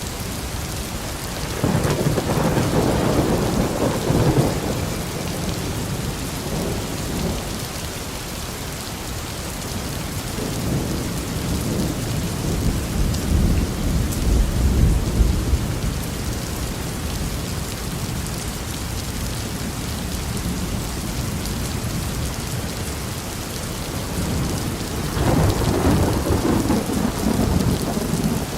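Steady rain falling on a surface, with rolls of thunder rumbling in three times: about two seconds in, a longer low roll in the middle, and again near the end.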